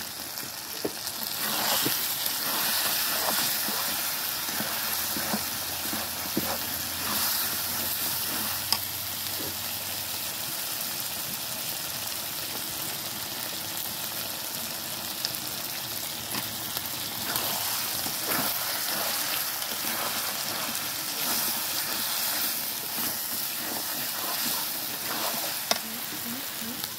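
Meat and potato curry sizzling steadily in a large metal pot, with scattered clicks and knocks from a long-handled ladle scraping against the pot as it is stirred.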